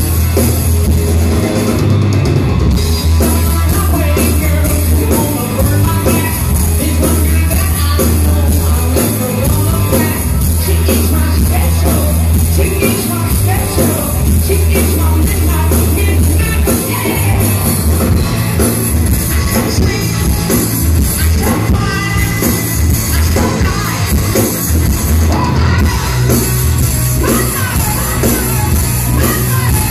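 Hard rock band playing live and loud: electric guitars, bass and drums with a lead singer, picked up by a phone microphone from within the audience.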